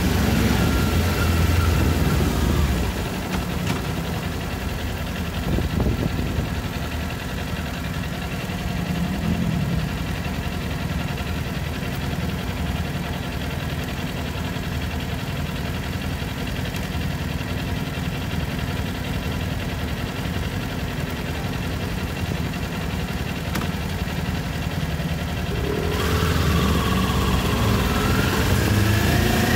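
Kawasaki Ninja 400's parallel-twin engine slowing down, then idling steadily in neutral for most of the stretch. Near the end the revs climb in rising sweeps as the bike pulls away.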